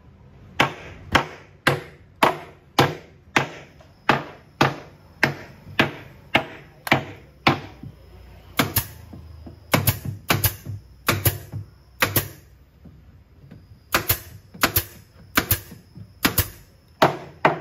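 Pneumatic nail gun firing over and over into the wooden panels of a subwoofer cabinet. It gives sharp shots at about two a second, with two short pauses.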